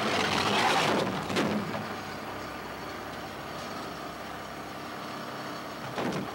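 Fishing boat's engine running steadily under way, with a louder rushing noise in the first second or so and a shorter one near the end.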